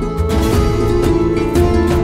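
Background music with held melodic notes over a steady, pulsing bass beat.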